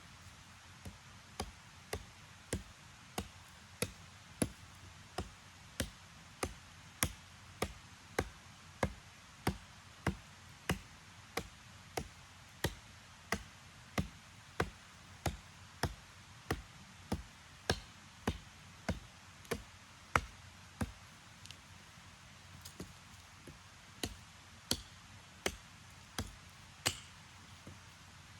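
A steady series of sharp knocks, about one and a half a second, with a short break and a few fainter strikes about three-quarters of the way through.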